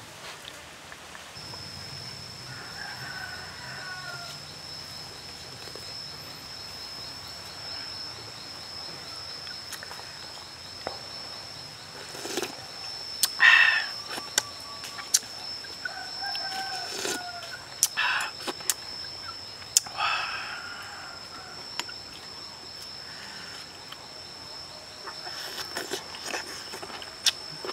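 Chickens clucking and calling a few times, loudest about halfway through, over a steady high-pitched whine. Sharp clicks of a spoon against a bowl come in between.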